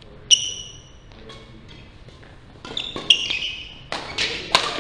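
Badminton rally on a wooden indoor court: a racket strikes the shuttlecock with a ringing ping about a third of a second in. From about three seconds in come a quick series of further hits, footfalls and sneaker squeaks.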